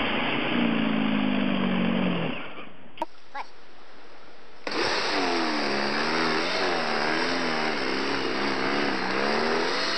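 Toro electric snow blower running, its motor hum wavering and dipping in pitch as it works through snow. The sound drops away about two seconds in and starts again about five seconds in.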